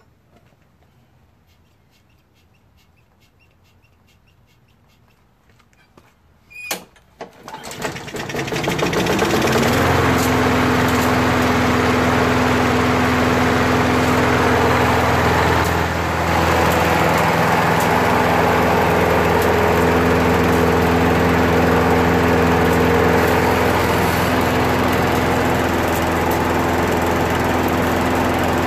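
Craftsman 6.5 hp Briggs & Stratton push lawn mower engine, its carburetor freshly cleaned, is pull-started about six seconds in. It catches at once, rises to speed over a couple of seconds, then runs steadily and smoothly.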